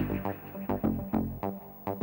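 Background music: a run of quick repeated notes over a steady low bass.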